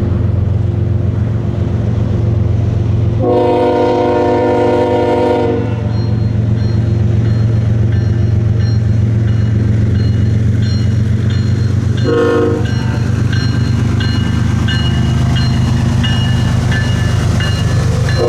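Diesel freight locomotive running steadily with its multi-note air horn blowing: one long blast about three seconds in, a short blast around twelve seconds, and another starting at the very end.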